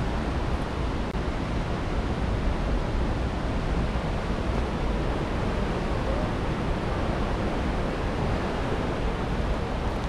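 Rushing water making a steady, unbroken noise.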